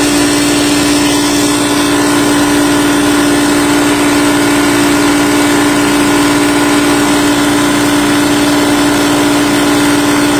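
Tuxing 4500 PSI high-pressure air compressor running steadily, pumping up pressure in a pressure test. It is a loud, even machine drone with a strong steady hum.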